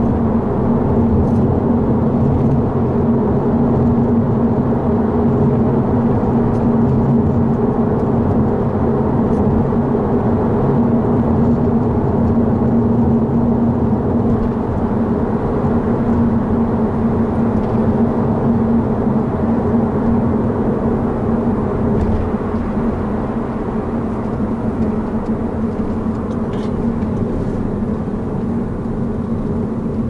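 Scion tC cabin noise while driving: a steady drone of engine and road noise, getting a little quieter in the last third as the car slows. Now and then there is a faint, very short high-pitched squeak, which the owner traces to the lower centre of the windshield, at the cowl, since the windshield was replaced.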